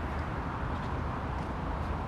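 Steady low rumble and road noise of a moving vehicle.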